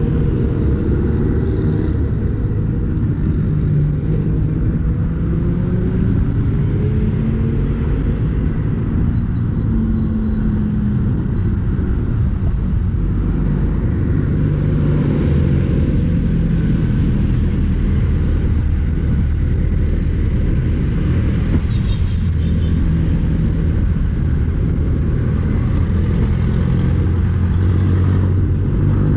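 Busy road traffic heard from a moving bicycle: car and motorcycle engines running close alongside, over a steady low rumble. Engine notes rise and fall in the first few seconds as vehicles pass.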